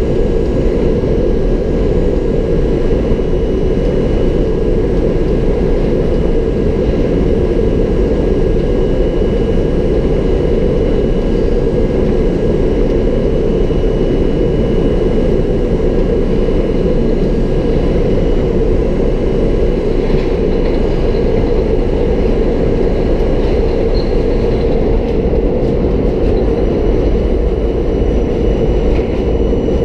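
R32 subway car running along the track, heard from inside the car: a steady, loud rumble of wheels on rails with a few faint steady tones above it.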